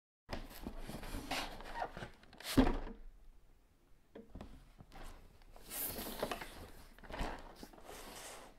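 Hands handling and turning over a cardboard RC car kit box on a wooden surface: rubbing and sliding of the card, with one sharp knock about two and a half seconds in.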